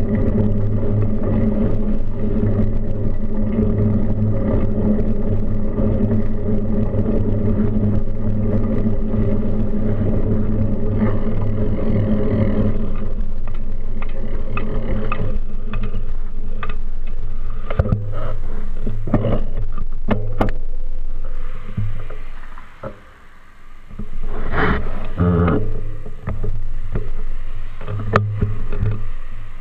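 Steady low rumble of a bicycle ride picked up by a bike-mounted camera: wind and road noise. In the second half the rumble breaks up into rattles, clicks and knocks from the bike and mount, and drops away briefly about three quarters of the way through.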